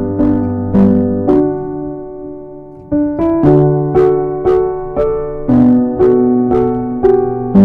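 Background piano music: notes struck about twice a second, with a held chord fading for about a second and a half near the middle before the notes resume.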